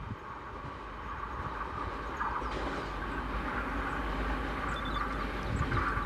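Passenger coaches of an express train rolling away along the track: a steady rumble of wheels on the rails, with no horn.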